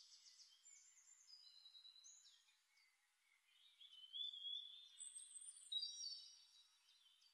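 Faint birdsong: several birds giving high chirps and whistles, with a short pause about halfway and livelier calling after it.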